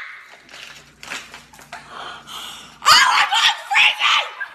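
Quiet scattered sounds at first, then a loud outbreak of laughter and excited shrieking from a woman and a boy about three seconds in.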